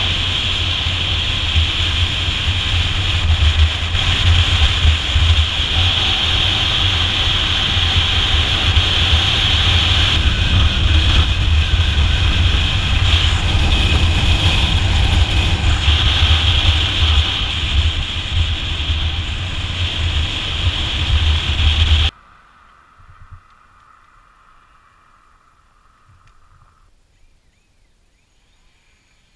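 Wind rushing and buffeting over a helmet-mounted action camera on a motorcycle at speed, with the bike's engine running under it. About three-quarters of the way through it cuts off suddenly to a much quieter roadside with a faint steady whine.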